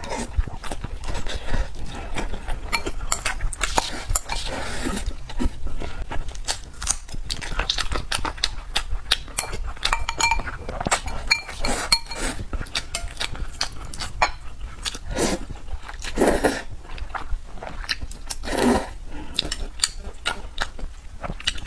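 Close-miked eating sounds of red braised pork belly with rice: wet chewing and mouth sounds mixed with frequent light clicks of utensils against a bowl, with a few louder bursts between about fifteen and nineteen seconds in.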